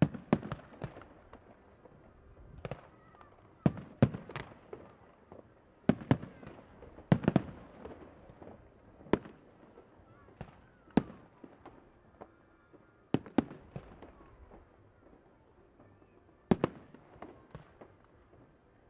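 Aerial fireworks shells bursting overhead in an irregular series of sharp bangs, sometimes two in quick succession, each followed by a rolling echo.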